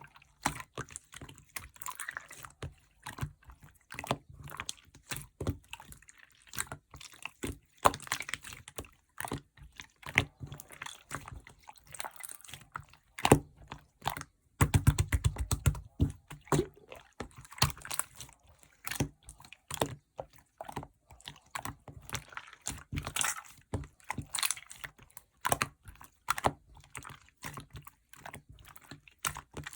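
Clear slime being pressed and squished by hand, giving a steady run of sticky clicks and small pops, thickest about halfway through.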